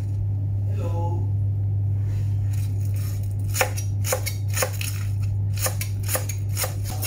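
Chef's knife chopping spring onions on a wooden chopping board: sharp knocks of the blade on the board, a few faint ones at first, then about two a second from halfway through. A steady low hum runs underneath.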